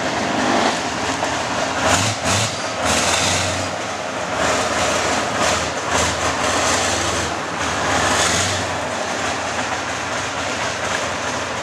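Heavy tracked recovery vehicle driving on a paved road: its engine running under load and its steel tracks clattering steadily.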